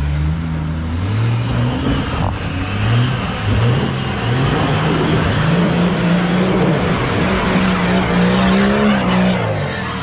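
A 4WD's engine revving hard under load as it climbs a steep muddy rut, its pitch stepping up over the first few seconds, held high, then dropping away near the end, with the tyres churning in the mud.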